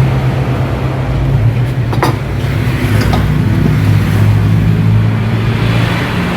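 A motor vehicle engine running close by: a steady low hum that shifts slightly in pitch, with a single sharp click about two seconds in.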